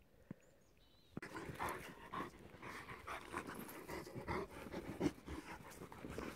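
A large dog panting and rolling on its back in the snow, with snow crunching under it, starting about a second in.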